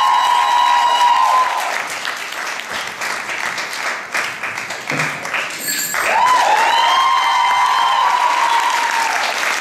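Audience applauding, with long high-pitched cheers over the clapping near the start and again from about six seconds in.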